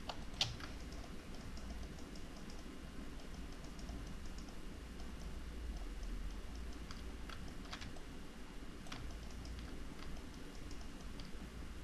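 Scattered soft clicks of a computer keyboard and mouse, with a few sharper clicks near the start and again around eight and nine seconds in, over a low steady hum.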